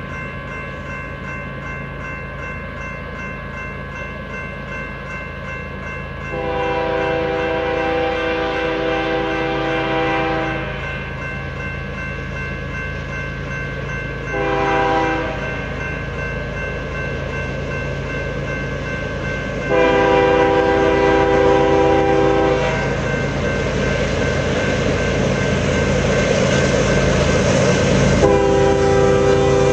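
Air horn of an approaching BNSF freight train's lead GE Evolution-series (GEVO) locomotive sounding for a grade crossing: a long blast, a short one, another long one, and a final long blast starting near the end. Under it the diesel engines rumble, growing louder as the train nears.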